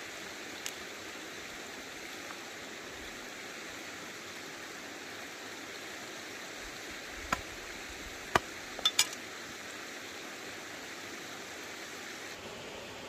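Steady rush of a flowing stream, with a few sharp taps about seven to nine seconds in, the last two in quick succession.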